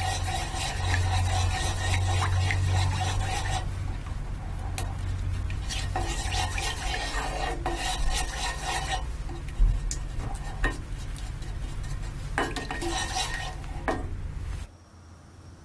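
Plastic slotted spatula stirring and scraping flour through oil in a nonstick frying pan, in spells with scattered clicks and taps against the pan. A steady low hum runs underneath and cuts off suddenly near the end.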